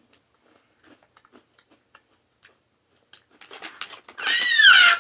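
Crunching and chewing on a Hawaiian cookie: faint scattered clicks, then crunching strokes from about three seconds in. Near the end comes a short, loud, high-pitched squeal that rises and then falls.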